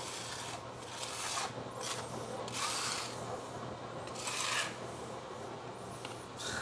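A few separate rubbing, scraping strokes, each about half a second to a second long, from hand work on the shower floor.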